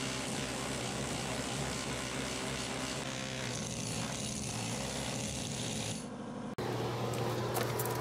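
Hand-held power chisel hammering out the old, melted-down refractory lining of a small foundry furnace: a steady, rapid mechanical rattle. It dips and breaks off sharply about six and a half seconds in.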